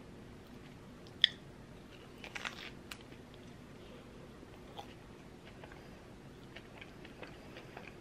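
A person chewing a flaky cream cheese danish pastry: soft wet mouth clicks and smacks, with one sharp click about a second in and a short crunchy flurry around two and a half seconds in.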